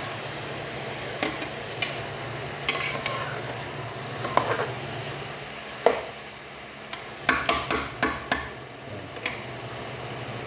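Metal spoon stirring chopped beef tripe in an aluminium pot, with irregular clinks and scrapes against the pot's side and a quick run of knocks about seven to eight seconds in. A steady low hum runs underneath.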